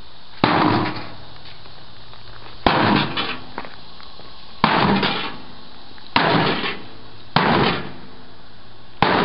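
A big hammer striking the metal casing of an old microwave oven six times, each blow a loud crash followed by a short rattling ring-out.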